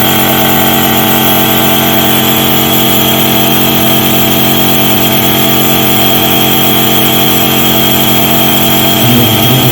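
Compressor nebulizer machine running, its air compressor giving a steady, loud electric hum and buzz as it drives air through the medicine cup.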